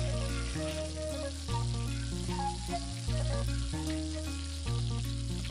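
Background music with sustained low notes that change every second or so, over the steady sizzle of chital fish pieces frying in mustard oil in a pan.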